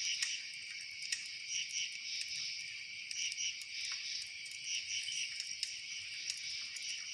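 A steady chorus of chirping insects, with pulses about every second or so, and a few sharp crackles from a campfire scattered through it.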